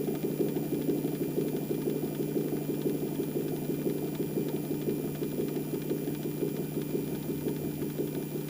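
Low-tone unit of an old L138 siren running with a steady low drone and a fast, even flutter, holding one pitch without rising or falling.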